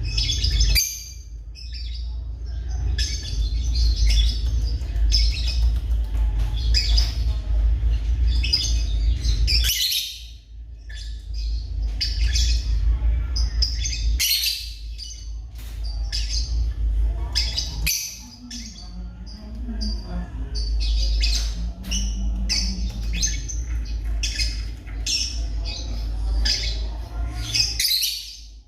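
African lovebirds chirping and squawking in quick, shrill runs of short high calls, with brief pauses, over a steady low rumble.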